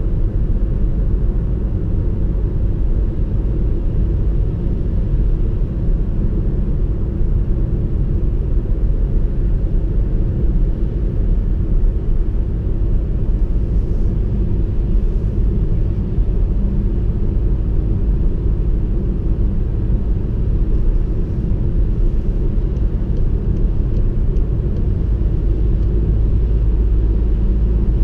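Steady low rumble inside the cabin of a 2016 VW Passat B8 2.0 TSI cruising at an even speed: engine drone mixed with tyre and road noise.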